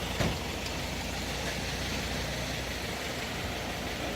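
An engine idling steadily, with one short knock just after the start.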